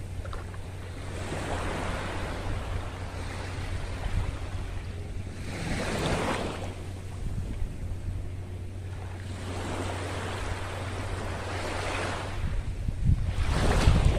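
Small waves washing up onto the beach, the hiss swelling and fading every few seconds, with wind rumbling on the microphone.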